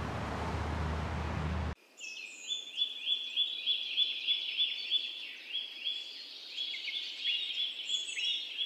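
Road traffic running steadily, cut off abruptly about two seconds in; then a songbird singing a fast series of short repeated notes, about four a second, that runs on to the end.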